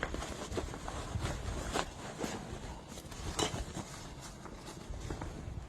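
Rustling and light knocks of a padded nylon camera backpack and its removable camera insert being handled.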